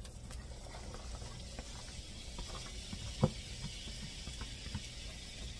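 Diced onion and celery dropping into hot olive oil in a cast iron skillet and sizzling, with small taps and scrapes as the pieces are pushed off the cutting board. One louder knock comes about three seconds in.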